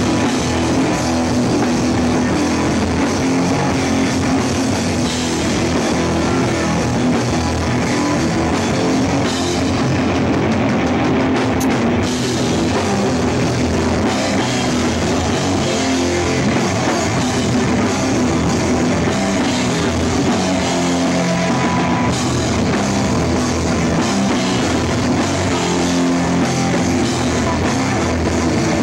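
Hardcore punk band playing live: drum kit with crashing cymbals, electric bass and guitar, loud and steady without a break.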